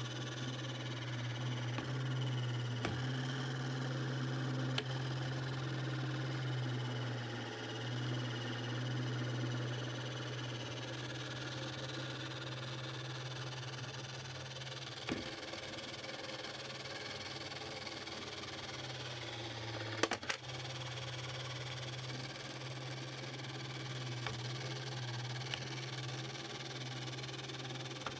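Small electric motor and plastic gear train of a 1980s Radio Shack Robotic Banker toy robot arm running steadily as the arm swings and lowers, a low hum that swells and eases a little. A few sharp clicks from the mechanism, the loudest about 20 seconds in.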